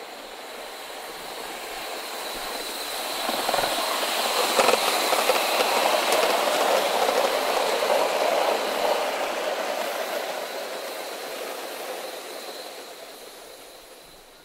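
Coal-fired live steam Gauge 3 model of a Southern Railway S15 4-6-0 hauling a rake of coaches along a garden track, its running and wheels on the rails growing louder as it passes and fading away near the end.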